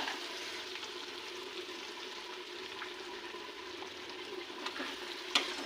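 Food cooking in a pan with a steady, faint sizzle.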